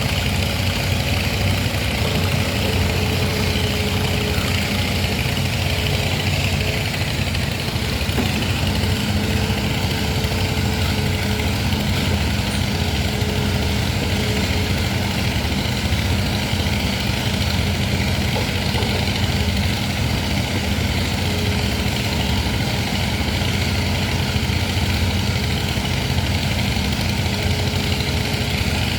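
Excavator's diesel engine running steadily at an even pace.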